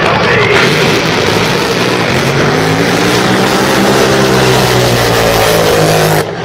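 Racing powerboat engine running loud at high speed, its pitch wavering over heavy rushing noise. It cuts off abruptly near the end.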